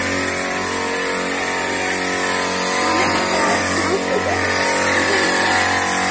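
Small two-stroke engine of a backpack power sprayer running steadily.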